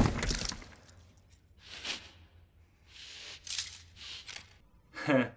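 Film soundtrack sound effects: a loud noisy hit at the start, then several short bursts of hissing, rustling noise, and a brief voice-like sound near the end.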